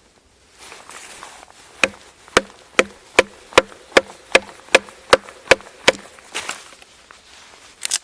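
A blade chopping into a wooden branch: a quick, even run of about ten sharp strokes, roughly two and a half a second, each with a short woody ring. A few softer knocks follow near the end.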